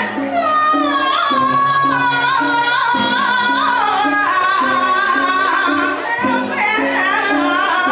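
Music with a solo voice singing long, wavering, ornamented notes over a short low note pattern that repeats steadily.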